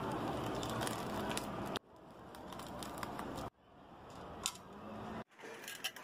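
Protective plastic film being peeled off a metal sheet: a crackling, tearing hiss that builds up and breaks off abruptly about every two seconds.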